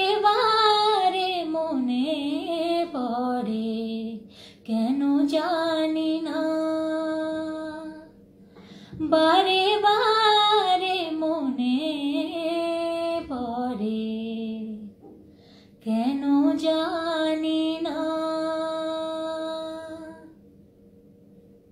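A woman's solo voice singing a Bengali song unaccompanied, in four long phrases with held notes and short breaths between them; the last phrase fades out shortly before the end.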